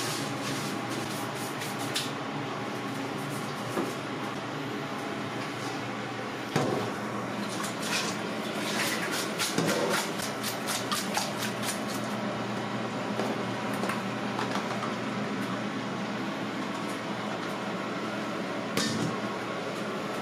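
Clicks and knocks of a stainless steel bowl and a plastic colander being handled at a steel sink while raw chicken is prepared, busiest in the middle, with a single knock near the end. A steady machine hum, like a kitchen fan, runs underneath.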